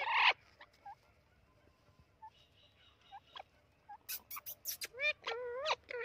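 Orange-winged Amazon parrot calling: a loud harsh call right at the start, a few faint chirps, then a quick series of sharp high squeaks about four seconds in, followed by a run of wavering, pitched squawks near the end.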